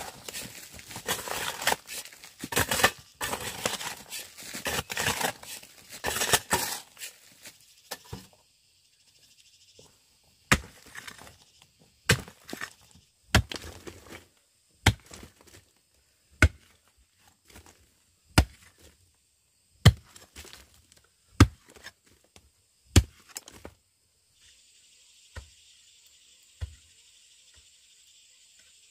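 A pickaxe digging into a bank of layered, crumbly rock. First comes a few seconds of dense scraping and crunching of loose stone and soil, then single sharp strikes about every second and a half, each followed by a short clatter of falling fragments. Insects drone in the background, louder near the end.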